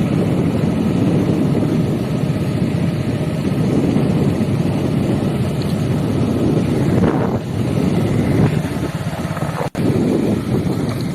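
Wind buffeting the microphone: a steady rushing noise that cuts out for an instant near the end.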